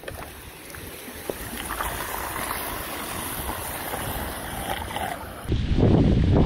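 Floodwater draining into a cleared street storm drain, a steady rush of water. About five and a half seconds in, loud wind buffeting on the microphone suddenly takes over.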